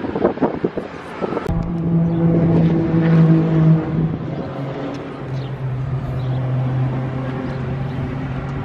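A vehicle engine droning steadily, stepping down to a lower pitch about halfway through. Wind buffets the microphone for the first second or so.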